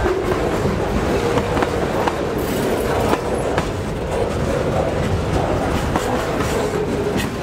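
Pan Am Railways freight train rolling past with a steady rumble, its wheels clacking over rail joints at irregular intervals.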